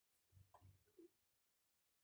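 Near silence: room tone with a few faint, brief low sounds in the first second.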